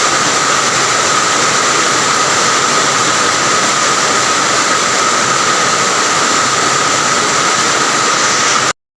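Rain falling steadily, an even hiss that cuts off abruptly near the end.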